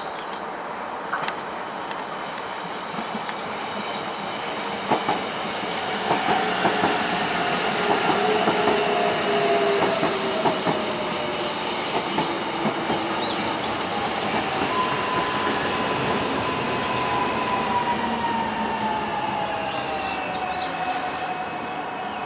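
Korail Class 321000 electric multiple unit rolling past on curved track. Its drawn-out whining tones slide slowly down in pitch, and in the middle stretch the wheels click over rail joints.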